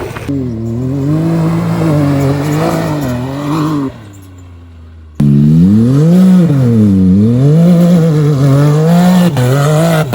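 Turbocharged Can-Am UTV engine, fitted with a valved exhaust and downpipe, revving up and down repeatedly as it is driven. The sound drops away about four seconds in, then comes back suddenly loud a second later with wide swings in revs.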